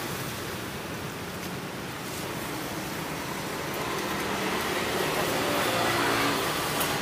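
Steady street traffic noise from passing vehicles, growing a little louder after the middle.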